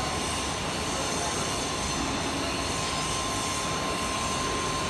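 Steady industrial machine noise with a constant high whine, from pipe fabrication machinery running.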